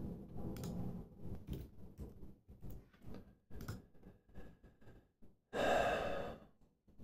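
Faint, scattered clicks and taps of computer typing, then a person's sigh about five and a half seconds in, lasting about a second and louder than the typing.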